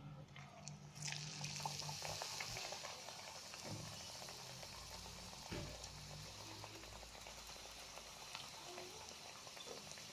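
Pieces of dough dropped into hot cooking oil and frying: a faint sizzle that starts about a second in, then carries on steadily with small crackles.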